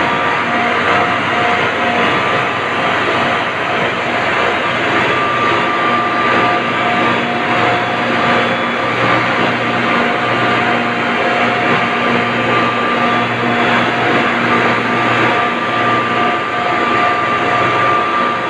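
Ice-plant refrigeration compressors and their electric drive motors running together: a loud, steady machine drone with a few steady whining tones held through it.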